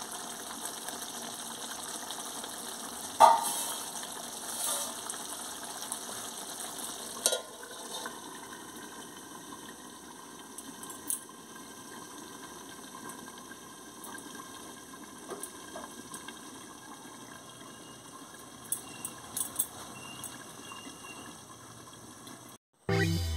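Chicken curry simmering and bubbling in a wide aluminium pan, stirred with a wooden spoon. Two sharp clanks sound about three and seven seconds in.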